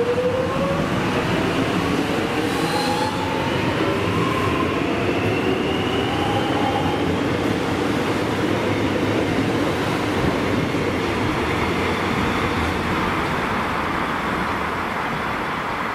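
Metro Trains Melbourne X'trapolis electric train departing the platform. Its traction motor whine climbs in pitch as it accelerates over the first several seconds, then gives way to steady wheel-on-rail rolling noise.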